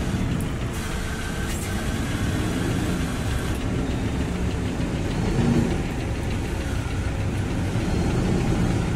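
JCB wheel loader's diesel engine running steadily under load as the machine climbs a dirt ramp onto a low-bed trailer.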